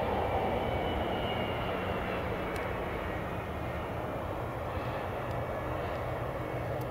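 Boeing 717's twin BMW Rolls-Royce BR715 turbofans running as the jet slows on the runway after landing: a steady rumble with a faint high whine that fades over the first few seconds, the whole sound easing slowly.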